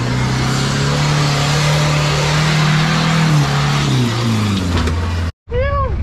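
Competition 4x4's engine working hard, its note climbing over the first three seconds and then dropping away, under a loud steady hiss. It cuts off abruptly near the end.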